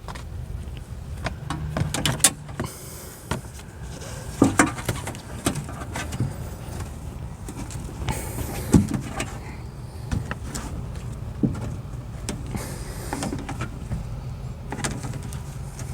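Irregular clicks and knocks of small parts being handled and fitted inside a car door, over a steady low hum.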